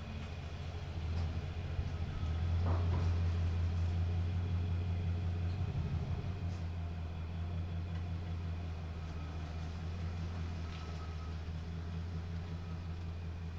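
Pickup truck engine running at low revs as it slowly tows a boat trailer, a steady low hum that rises a little a few seconds in.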